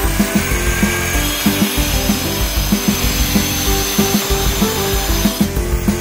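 Handheld angle grinder cutting through a granite tile, the disc grinding steadily into the stone, with background music with a regular beat over it.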